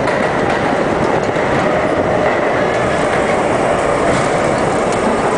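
R-32 subway car running on the rails, heard from inside the front of the car: a steady loud rumble with scattered clicks of the wheels and faint steady tones above it.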